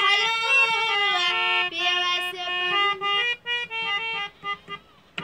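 Harmonium playing a melody: held reedy notes stepping from pitch to pitch, then short separate notes with gaps between them near the end.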